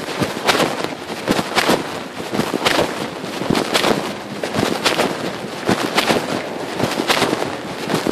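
Pocket fabric rubbing and scraping directly against a phone's microphone with each walking step, a loud scratchy rustle in a repeating rhythm of about two scrapes a second.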